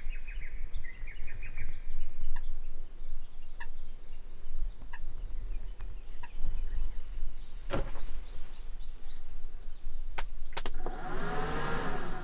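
Birds chirping outside over a steady low rumble, with a few sharp knocks around eight and ten seconds in and a louder, wavering call near the end.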